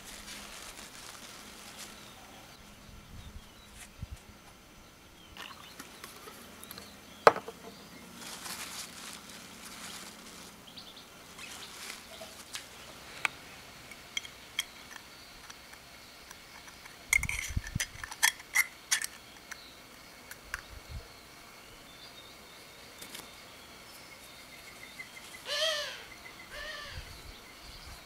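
An old brass petrol lighter is handled, filled and reassembled: scattered small metallic clicks and taps, with one sharp click about seven seconds in and a quick run of clicks past the halfway point. A short pitched call, with a weaker repeat, comes near the end.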